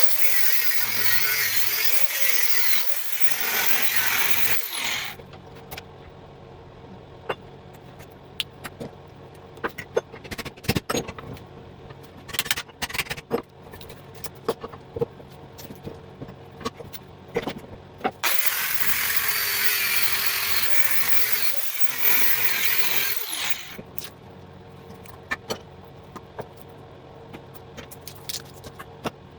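Angle grinder with a cutoff wheel cutting through a small transformer's steel with a high screech, twice for about five seconds each. Between the cuts come many sharp metal knocks from a hammer and punch driving the copper windings out.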